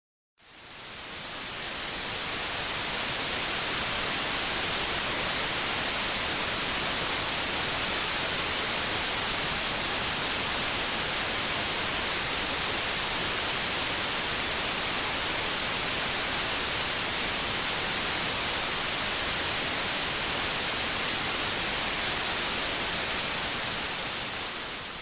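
Synthetic white noise: a steady, even hiss across the whole range, with no tones or events, fading in from silence over the first couple of seconds and fading out at the very end.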